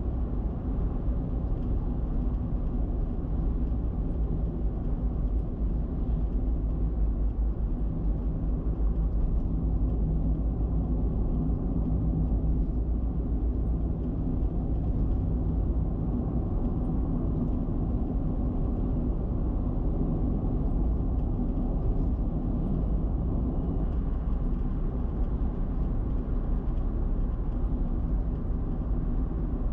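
Car cruising at expressway speed: steady tyre and road noise with a low engine drone underneath.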